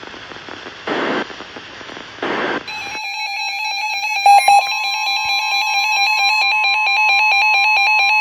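The last two short data bursts of an Emergency Alert System end-of-message signal, about a second apart. About three seconds in, a loud electronic alert tone starts for the next warning: a rapidly pulsing beep, joined a second later by a steady higher tone.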